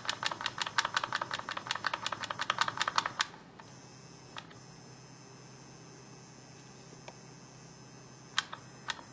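Omega 2-speed electric powder trickler running, ticking rapidly at about seven clicks a second as it feeds powder kernels down its discharge tube. The ticking stops about three seconds in, leaving a faint hum and a couple of single clicks, and starts again shortly before the end.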